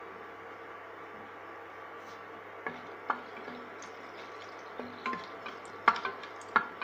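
Wooden spatula stirring whole spices in oil in an aluminium pressure cooker, knocking and scraping against the pot several times from a little before halfway on, loudest about six seconds in, over a steady low hum.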